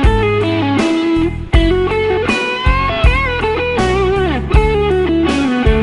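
Instrumental passage of a Khmer pop song: a guitar lead with a few bent, wavering notes about three seconds in, over bass and a steady beat.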